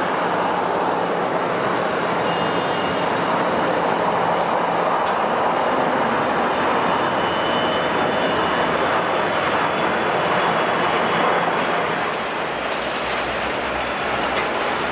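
Steady jet noise from a twin-engined regional jet's turbofans as it climbs out after takeoff. A little after twelve seconds in the sound eases slightly and takes on more low rumble.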